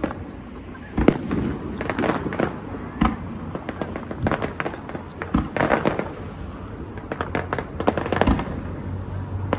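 Aerial fireworks going off: a rapid, irregular run of bangs and crackling pops from shells bursting, the loudest bang about a second in.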